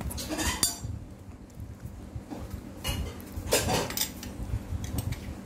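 Metal spoon clinking and clattering against a dish as a baby bangs and waves it, a few clatters about half a second in and again about three and a half seconds in.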